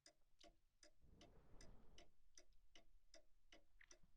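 A clock ticking steadily and quietly, about two and a half ticks a second, with a faint low rustle underneath in the middle.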